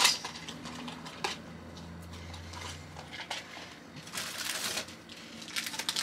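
Small plastic toys clicking and clattering as they are handled and set down, with a plastic packaging bag rustling near the end.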